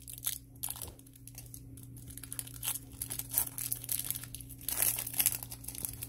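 Trading card pack wrapper and hockey cards being handled: irregular crinkling and rustling with small clicks, busiest around four and a half to five and a half seconds in.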